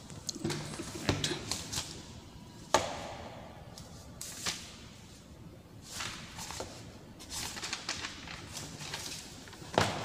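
Paper pages of a notebook being turned and riffled by hand: rustling with several sharp paper slaps, the sharpest about three seconds in and again near the end.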